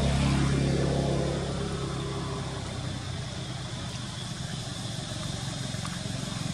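A motor vehicle's engine running, loudest about the start, fading through the middle, then growing louder again near the end.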